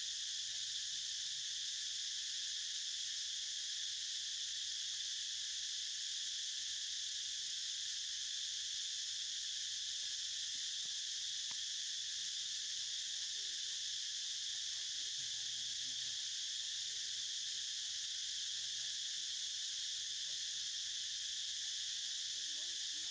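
Steady insect chorus, a continuous high-pitched buzz in several bands that never breaks.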